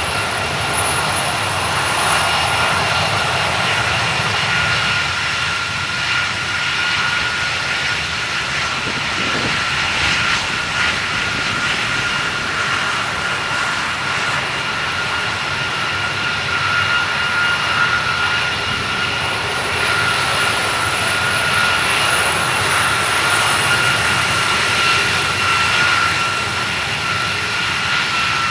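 KC-135 Stratotanker jet tankers taxiing, their CFM56 (F108) turbofan engines running at low taxi power: a steady jet whine with clear high-pitched tones over a continuous rumble.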